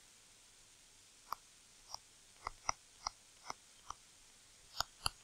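Stylus tapping and ticking on a tablet screen while handwriting: about ten faint, sharp ticks at uneven spacing.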